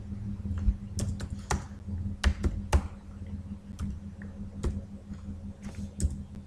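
Typing on a computer keyboard: a dozen or so irregular keystrokes, some in quick pairs, over a steady low hum.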